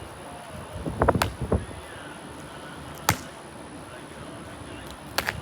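A few sharp knocks and clatters of things being handled: a quick cluster about a second in, a single knock around three seconds in, and another near the end.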